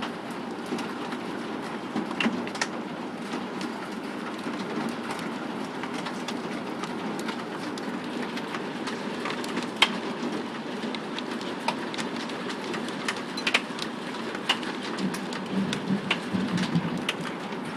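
Hail falling hard: a steady roar of hail and rain with many sharp clicks of individual stones striking hard surfaces.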